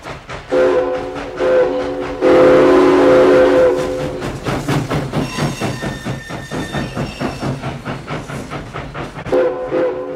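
Steam locomotive whistle blowing a chord of several tones: a short blast, then a longer, louder one, and another near the end. Under it runs the rhythmic clatter of the passing train.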